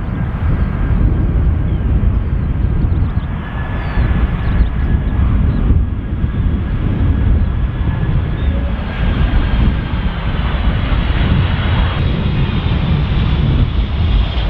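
Boeing 767-300ER jet engines on landing, a steady engine whine with higher tones strengthening partway through, over heavy low rumble from wind on the microphone.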